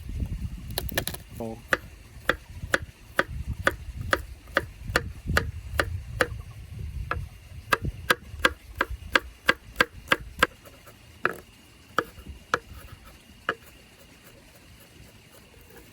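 Knife chopping on a cutting board in an even rhythm of about two strokes a second, slowing to a few separate chops after about ten seconds.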